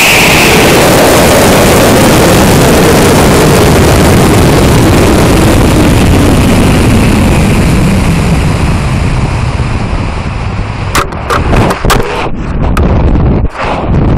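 Onboard sound of a high-power rocket flight: the Cesaroni J335 Red Lightning motor's roar at liftoff gives way to loud rushing wind over the airframe as the rocket coasts upward, the hiss slowly thinning as it slows. About eleven seconds in there is a cluster of sharp cracks as the ejection charge fires near apogee and the rocket separates, then wind noise again.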